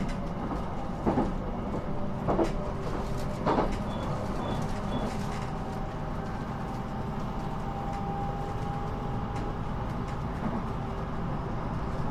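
Inside a passenger car of a Sendai Airport Line electric commuter train running between stations: a steady running rumble. Four sharp knocks come in the first four seconds, and a faint steady tone rises out of the rumble around the middle.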